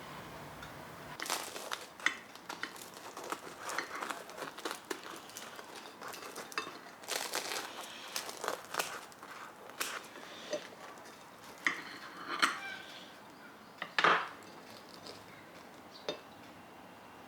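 Kitchen dishes and utensils being handled: irregular clinks and knocks with some rustling, the loudest knock near the end.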